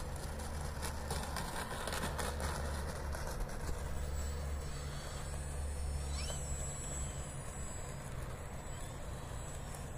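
Wind rumbling on a phone's microphone as a steady low buffeting, with light crackles in the first two or three seconds.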